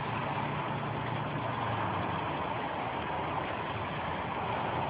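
Flash-flood water rushing across a desert road, a steady rushing noise with a low hum underneath that fades about two seconds in.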